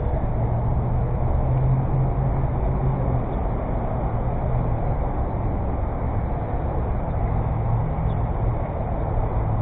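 Steady low rumble of outdoor background noise, with no distinct hits or voices.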